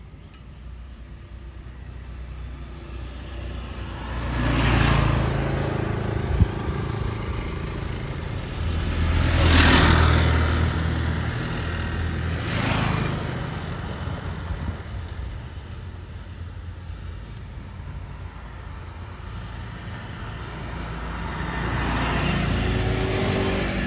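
Road traffic: several vehicles pass one after another, their engine rumble and tyre noise swelling and fading, the loudest pass about ten seconds in. A single sharp knock comes about six seconds in.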